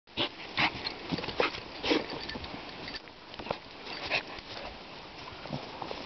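Dog sniffing close up: a run of short, quick sniffs, most of them in the first two seconds, then a few more spaced out.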